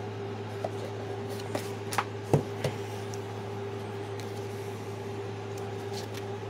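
Cardboard box and paper instruction card being handled: a few light taps and rustles in the first three seconds, the sharpest about two and a half seconds in, over a steady low hum.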